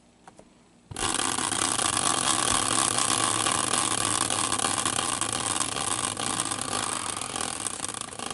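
Steel caster wheel on its mounting bracket, wrapped in stickers and spun hard by hand. It gives a steady, rattling whir of the wheel turning on its bearing that starts suddenly about a second in and slowly weakens as the wheel coasts down near the end.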